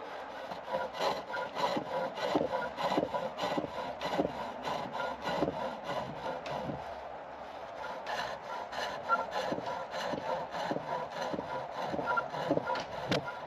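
Turning chisel cutting a chestnut spindle on a treadle-driven pole lathe, a rhythmic scraping of about three strokes a second as the wood spins back and forth. The strokes ease off briefly about halfway through, then start again.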